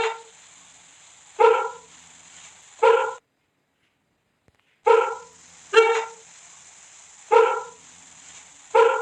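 An animal giving short, sharp bark-like calls about every one and a half seconds, in two runs separated by a silent gap of about a second and a half in the middle, over a steady hiss.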